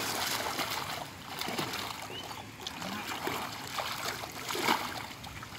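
Pond water splashing as a large netted fish thrashes against the man holding it, in uneven bursts with a loud splash about four and a half seconds in.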